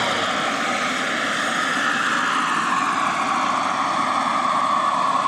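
Model gas turbine engine whining, its high tones sliding slowly down in pitch over a steady engine rush.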